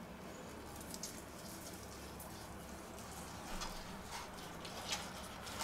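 Carving knife slicing through roast pork on a wooden board, held with a meat fork: faint sawing with a few light ticks of the blade and fork.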